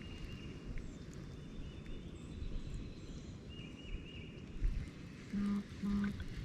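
Wind rumbling on the microphone, with a few faint repeated bird chirps. Near the end come two short low hums, half a second apart.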